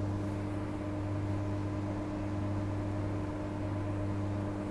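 Steady running hum inside the carriage of a Transperth A-series electric multiple unit moving slowly: a constant electrical drone with several fixed tones over an even rumble of the train on the track.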